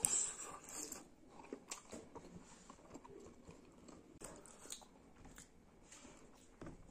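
A person biting and chewing strips of cooked skin in curry, close up: irregular wet chewing with soft clicks and crackles. The loudest moment is in the first second, as a strip is bitten.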